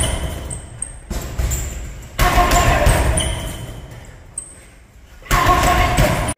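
Gloved punches landing on a hanging heavy bag in quick combinations: three flurries of several blows each, the first under way at the start, the next about two seconds in and the last about five seconds in. Each flurry echoes and fades in a large hall.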